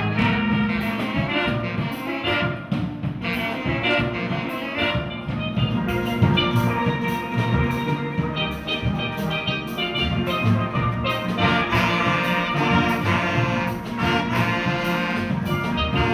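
A student ensemble of saxophones and other wind instruments playing with steel pans and drums.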